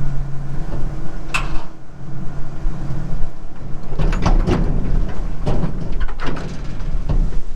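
Tractor engine running steadily, with a single sharp knock about a second in. After about four seconds come a run of irregular clunks and rattles as the tractor pulls the jackknifed grain wagons forward to straighten them.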